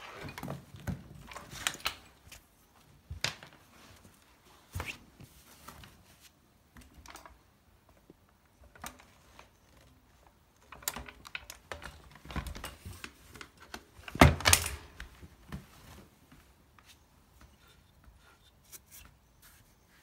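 Scattered knocks, clicks and rustles of a Hoover Junior upright vacuum cleaner being handled and tipped over on a woven rug, with its motor not running. A louder cluster of knocks comes about fourteen seconds in.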